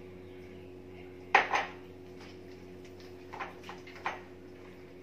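A small cup knocking twice sharply as it is put down on the counter or against the plastic mixing bowl, then a few lighter clicks and taps as dough is beaten by hand in the bowl. A steady low hum runs underneath.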